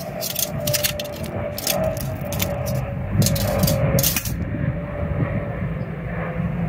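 Steady roar of a propane forge burner, with a faint held tone, while irregular sharp crackles and clicks come through on top.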